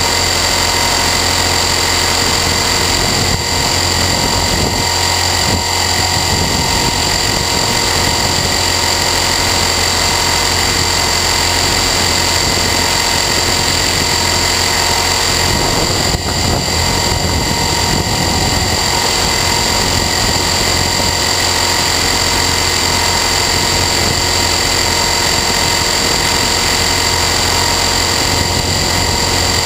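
Align T-Rex 450 Sport electric RC helicopter in flight, its brushless motor, gears and rotor running at a constant speed with a steady high whine over a dense buzz.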